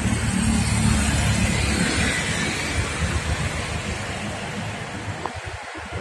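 Road traffic passing close: engine rumble from a minivan and motorcycles, loudest in the first couple of seconds and then fading, with a tanker truck's engine approaching behind them.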